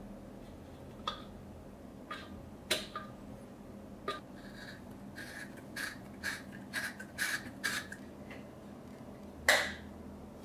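Light metallic clicks and taps of brass oil-lamp burner parts being handled and fitted together. A quick run of small ringing clicks comes in the middle, and one louder tap near the end.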